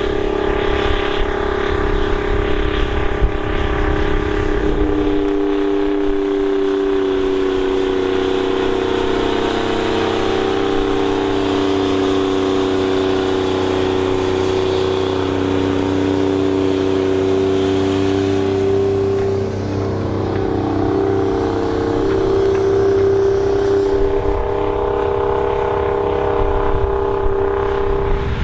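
Big farm tractor engine running steadily under load while pulling a plow, a loud drone whose pitch drifts slightly up and down. A deep low rumble under it drops away about five seconds in.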